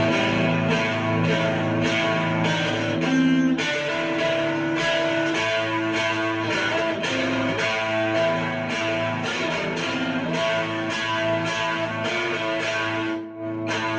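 Electric guitar in standard tuning, played through a Death By Audio Crossover Fuzz pedal: rhythmic strummed chords with sustained notes, with a short break about thirteen seconds in.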